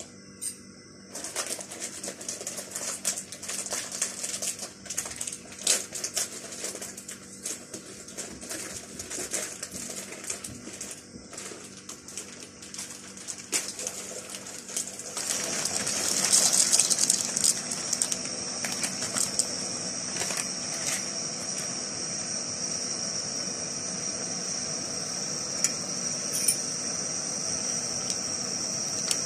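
Dry pasta and its packet crackle and rattle as it is handled and poured into a pot. About halfway through a loud rush sets in as the pasta goes into the boiling water, and it settles into a steady bubbling with a high hiss from the pot on a small gas-cylinder burner.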